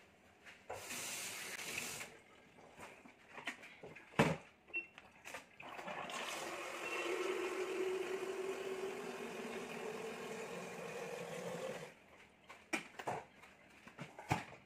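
Water running from a tap into a container for about six seconds, its tone rising slightly as it fills. Before it there is a short hiss and a single knock about four seconds in, and light kitchen clatter follows.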